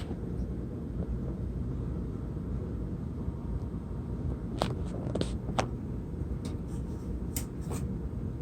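Steady low rumble with a few sharp clicks, a cluster about halfway through and two more near the end; no alarm horn sounding.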